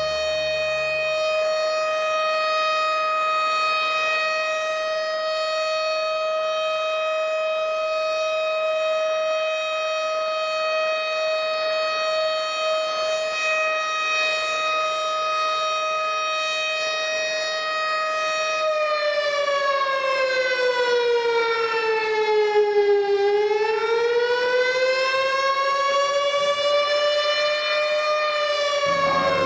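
Siren wail on one steady pitch with a strong buzzy overtone series, held for about eighteen seconds, then sliding down in pitch, rising again, and starting to fall once more near the end.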